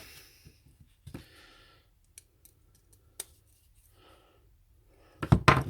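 Faint clicks and small scrapes of hand work on a 13 amp plug, the live wire being held and fixed in its terminal with a screwdriver. There is one short, loud burst of noise a little after five seconds.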